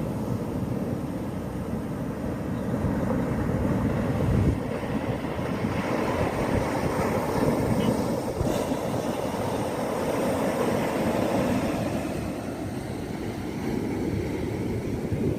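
Ocean waves breaking and rushing in a steady roar of surf that swells and eases gently.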